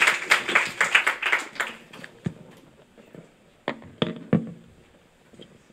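Audience clapping, dying away about two seconds in, followed by a few separate knocks and bumps.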